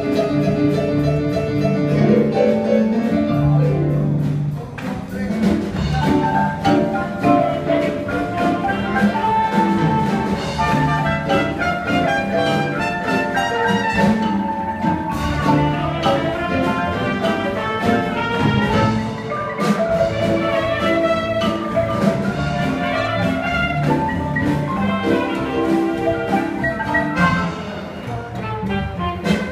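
Two Guatemalan wooden marimbas played together live with an upright bass, many players' mallets striking quick runs and chords in a lively tune.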